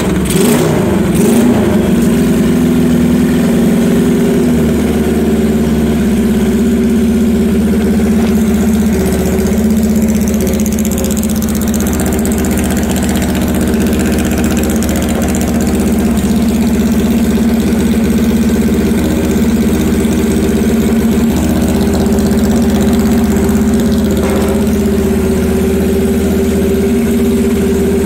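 A 1965 Honda CL77's 305 cc air-cooled parallel-twin engine idling steadily. Its note wavers briefly at first, then settles and holds even.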